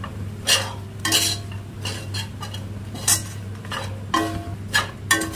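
Metal spatula scraping and knocking against a kadai while stirring gram flour into an onion and spice masala. The strokes come irregularly, several with a brief metallic ring.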